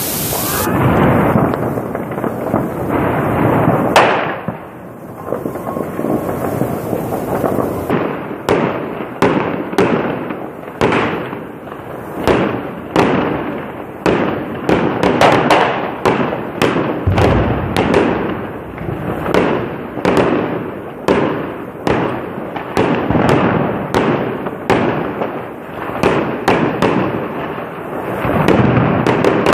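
Aerial fireworks going off: dense crackling for the first few seconds and a single sharp bang about four seconds in, then from about eight seconds a steady string of bangs, roughly two a second, each trailing off.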